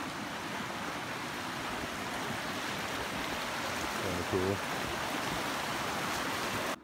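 Fast-flowing mountain creek rushing steadily over rocks and logs. A voice speaks briefly about four seconds in, and the water sound cuts off abruptly near the end.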